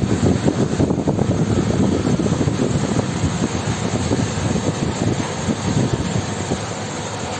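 Water chiller running, its large condenser fan blowing a steady, loud rush of air.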